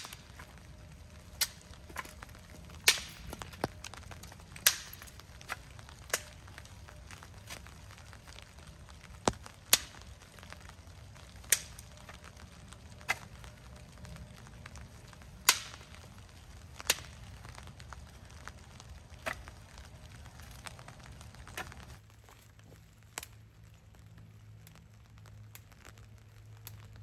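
Dead, dry sticks being snapped for firewood: about a dozen sharp cracks at irregular intervals, one every second or two. The snapping stops about two-thirds of the way in, and only a single faint crack follows.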